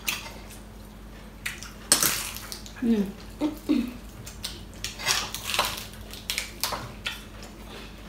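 Cutlery clinking and scraping on plates during a meal, heard as scattered sharp clicks and clatters, with a brief voiced murmur about three seconds in.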